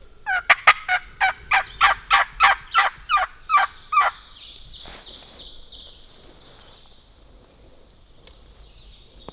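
A run of about a dozen loud turkey yelps, each note dropping in pitch, about three a second, lasting some four seconds and then stopping.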